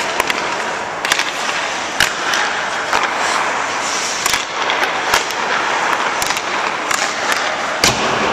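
Ice skate blades scraping and cutting across a rink surface as a hockey goalie pushes and shuffles in the crease, with sharp knocks echoing around the arena about once a second.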